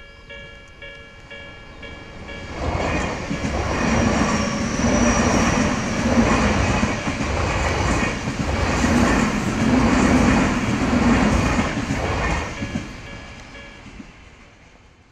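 A metro train passing: the rumble of wheels on rails builds about two seconds in, runs loud for about ten seconds, then fades away. Before it, a short repeated beeping sounds.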